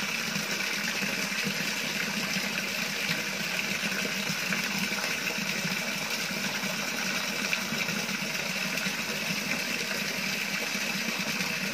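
Steady rushing noise of circulating water with a low mechanical hum, typical of a koi pond's pump and filter running.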